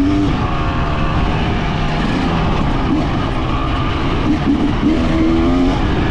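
2024 Husqvarna TE300's fuel-injected two-stroke single-cylinder engine running while ridden, its pitch rising and falling with the throttle, over a constant rushing noise.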